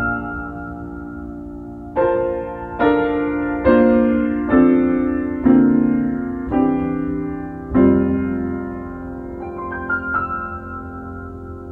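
Piano playing a slow instrumental piece: full chords struck about once a second, each left to ring and fade, with a few lighter high notes near the end.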